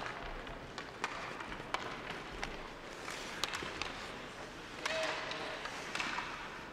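Ice hockey play: skates scraping the ice and irregular sharp clacks of sticks and puck.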